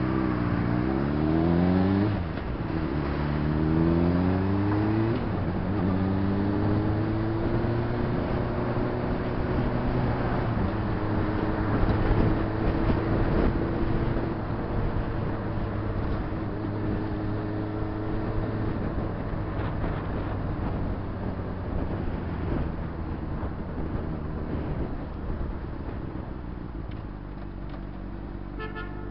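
Honda CBR600RR inline-four engine accelerating through the gears: the pitch climbs and drops back three times over the first several seconds as it shifts up. It then holds a steady cruise with wind noise and eases off to a low idle near the end.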